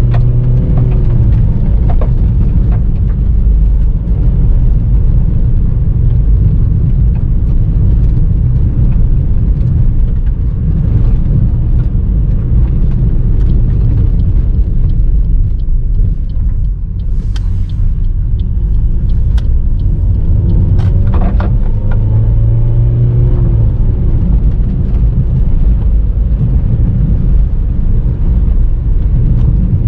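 A car driven on a gravel road, heard from inside the cabin: a steady low rumble of engine and tyres on gravel. The engine note rises and falls briefly near the start and again about two-thirds of the way through, and a few sharp ticks sound against the rumble.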